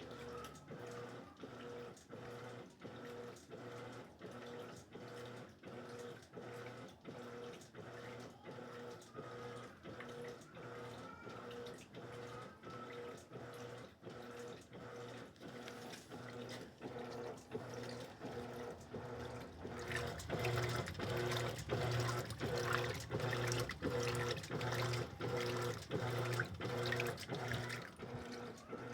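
Electrolux LED14 top-loading washing machine agitating on its turbo setting: water sloshing in an even back-and-forth rhythm, about two strokes a second, over the hum of the motor. It grows louder about two-thirds of the way through.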